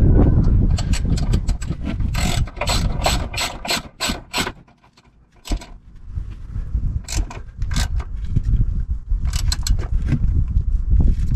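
Hand socket ratchet clicking in quick runs as a bolt is tightened, with a short pause about halfway through. A low rumble sits underneath.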